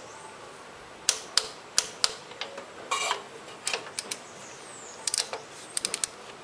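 Click-type torque wrench set to 2 kgf·m ratcheting and clicking as new spark plugs are given their final tightening in the cylinder head. Sharp, irregularly spaced clicks, some in quick clusters of two or three.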